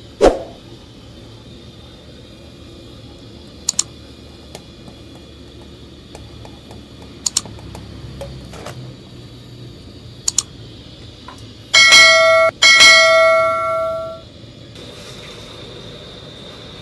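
Subscribe-button animation sound effects: a short swoosh at the start, three mouse double-clicks a few seconds apart, then a notification bell dinging twice and ringing out over about two seconds, the loudest sound, over low steady background noise.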